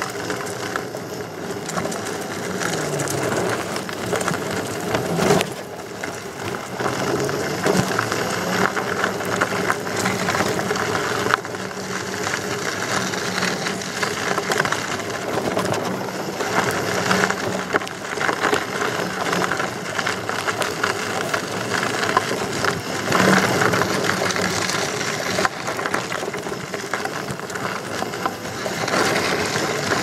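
Electric unicycle rolling along a dirt trail: the tyre crunching and crackling over dirt and gravel, under a steady hum from the hub motor.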